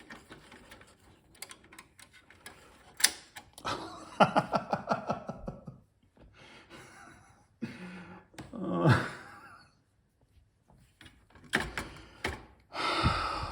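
Scattered small clicks and knocks of a screw being fitted and turned into a metal drive bay of a PC case, with a man's wordless grunts and sighs of effort in between.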